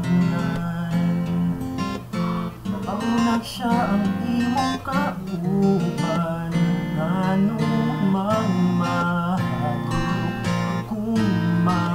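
Acoustic guitar strumming chords, with a voice singing a wavering melody over it.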